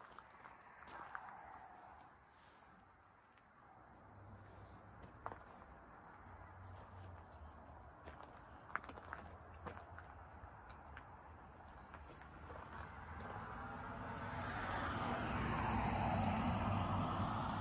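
Crickets chirping steadily, with scattered footsteps on gravel. An engine hum runs underneath, grows louder in the second half and is the loudest sound near the end.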